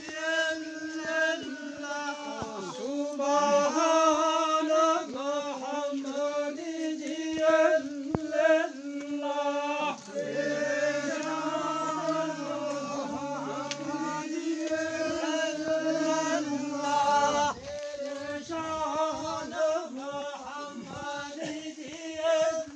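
A man's voice chanting a slow, drawn-out melody, holding long notes and sliding between them, with a lower sustained part joining for a few seconds in the middle.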